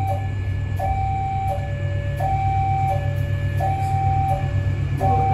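Railway level-crossing warning alarm sounding, an electronic two-tone signal that alternates steadily between a higher and a lower note, each held about three quarters of a second, warning that a train is approaching. A steady low hum runs underneath.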